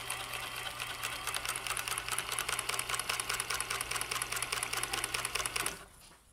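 Janome Combi DX 502 combination machine running on its overlock (serger) side, sewing a two-thread flatlock: a steady motor hum with rapid, even stitch clicking. It stops suddenly near the end.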